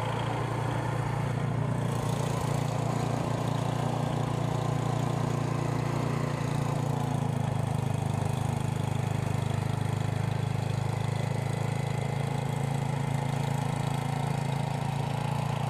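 A small engine running steadily at an even pitch.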